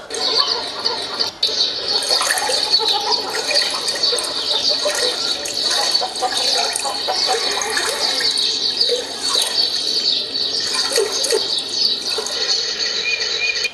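Nature soundscape of running water with birds chirping, as a recorded backdrop to the dance.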